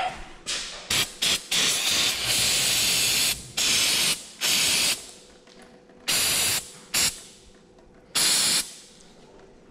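Aerosol can of ether starting fluid sprayed in a series of hissing bursts, a few quick short ones, then one of about two seconds, then several more short bursts. It is being used in place of brake cleaner to wash oil off around the oil filter.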